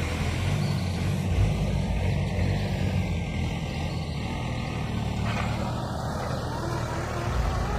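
Tractor engine running steadily while ploughing, a continuous low rumble.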